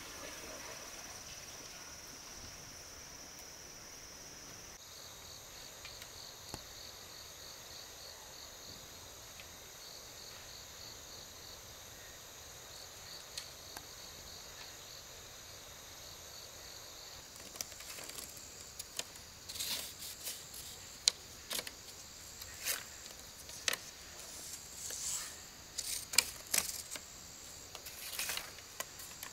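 Forest insects trilling steadily at a high pitch, turning to a fast pulsing trill about five seconds in. In the last twelve seconds or so, a run of irregular sharp clicks and knocks sounds over the insects.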